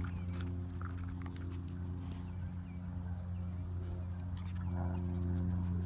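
Border collie chewing watermelon, with short wet clicks and crunches, mostly in the first second and again near the end, over a steady low hum.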